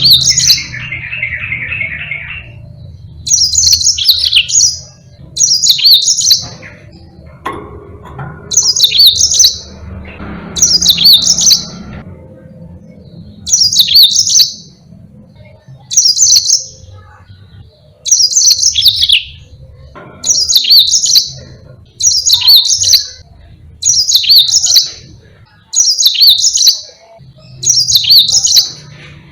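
Yellow-fronted canary (Mozambique) singing the same short, high, warbling phrase over and over, roughly every two seconds. A lower rapid trill sounds in the first two seconds.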